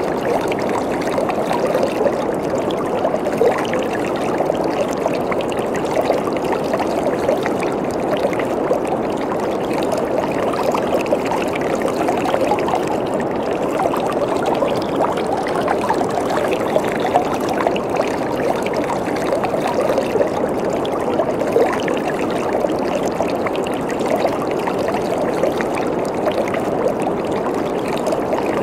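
Waterfall: water falling and splashing steadily, a dense constant rush with fine bubbling detail.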